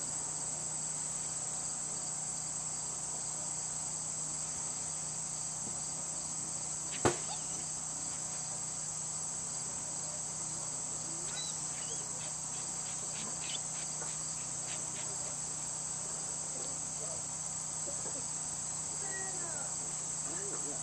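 Steady high-pitched chorus of insects, crickets among them, with one sharp knock about seven seconds in.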